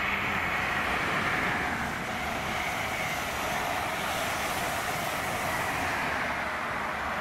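LNER High Speed Train's Mark 3 coaches passing at speed on the main line: a steady rush of wheels on rail and air.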